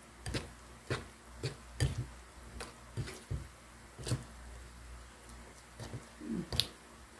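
Metal spoon stirring a thick, wet batter of grated sweet corn and glutinous rice in a ceramic bowl: irregular soft clinks and scrapes against the bowl, closer together in the first few seconds and sparser later.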